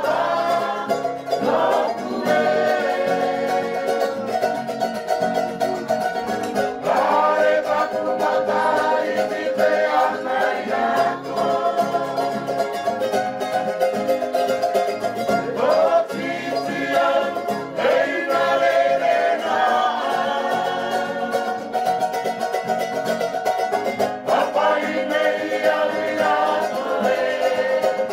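Background music: a song with singing over plucked string instruments, at an even level.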